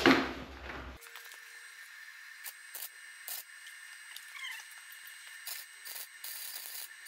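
Electric arc welding on a steel three-wheeler frame: short bursts of crackling hiss as the arc is struck, then a longer steady run of crackle near the end, with the welder's heat turned up for the thicker frame metal. A brief louder noise comes at the very start.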